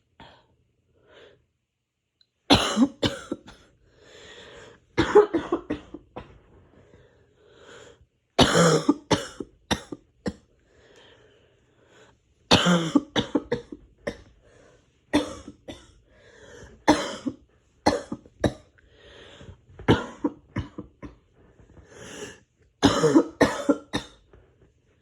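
A person's harsh, hacking coughing fit from a cold: clusters of several coughs in quick succession, one cluster every two to four seconds, with short pauses between.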